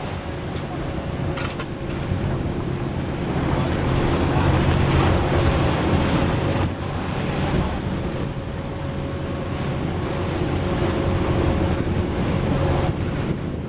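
Tour boat's engine running steadily, with wind on the microphone and water noise. The engine gets a little louder about four seconds in.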